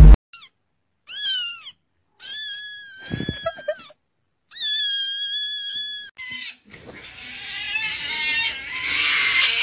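Cats meowing: a few short meows that rise and fall, then two long drawn-out meows, then from about seven seconds in a louder, harsh screaming cry that falls in pitch.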